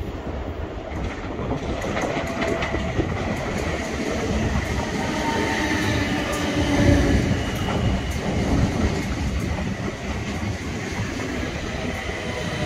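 South Western Railway Class 455 electric multiple unit pulling out of the platform, its wheels running over the rails with a steady rumble and faint clicking.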